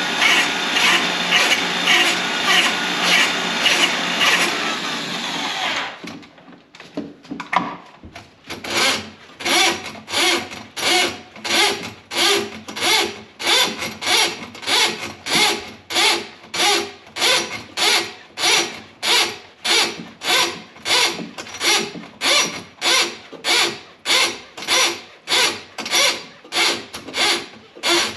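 A machine runs steadily with a regular pulse and stops about six seconds in. It is followed by a long, even series of rubbing or scraping strokes, about one and a half a second.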